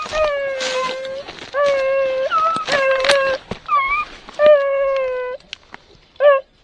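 Rabbit-hunting hound baying: about five drawn-out, level howls of up to a second each, then a short yelp near the end. Dry brush snaps and crackles between the calls.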